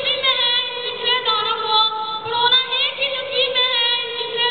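A boy's high voice declaiming an Urdu speech in a sing-song delivery, with long held notes.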